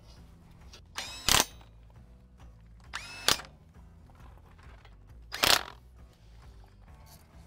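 Cordless power tool driving belly pan bolts, run in three short bursts about two seconds apart, its motor whining up in pitch each time.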